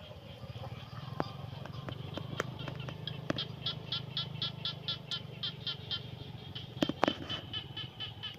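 Chicks peeping in a fast, even run of high chirps, about five a second, with a few sharp knocks and a low steady hum underneath.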